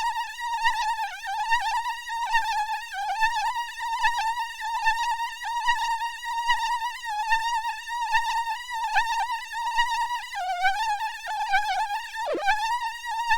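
Mosquito buzz sound effect: a high, continuous whining tone that wavers slightly in pitch and pulses in level, with one brief sharp drop in pitch near the end.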